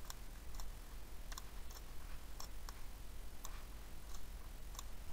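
Faint computer mouse clicking, mostly in quick pairs about once a second, over a low steady hum.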